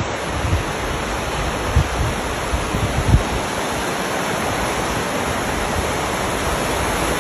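A swollen river at the start of a flood, rushing over a weir: a steady, even rush of water. A few low thumps break through it.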